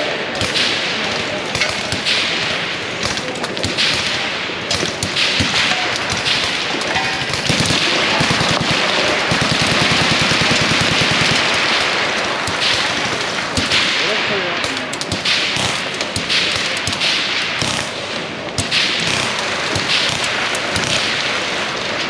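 Suppressed firearms firing along a firing line: many overlapping shots and sharp cracks, with a long, rapid automatic burst around the middle.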